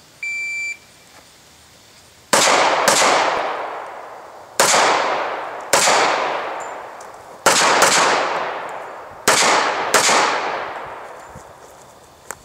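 An electronic shot timer gives one short start beep, then a Heckler & Koch USP 45 pistol fires eight .45 ACP shots, mostly in quick pairs. Each shot rings out with a long fading echo.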